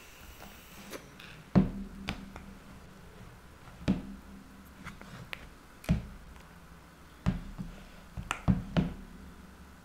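Spoon knocking and scraping against a plastic mixing bowl of cookie dough: about seven short, sharp taps at irregular intervals, the loudest near the start and again towards the end.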